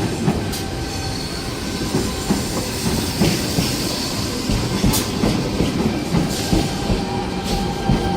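Sydney Trains Tangara electric train rolling into the platform, its wheels knocking and clattering over the track with a light wheel squeal.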